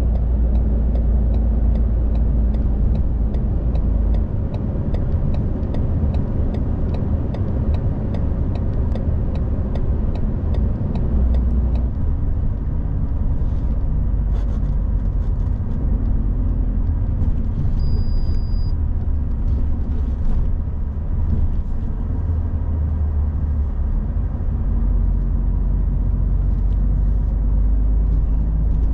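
Truck running down the road, heard inside the cab: a steady low engine and road rumble. A regular light ticking, about three a second, runs through the first dozen seconds and then stops, and a short high beep sounds about eighteen seconds in.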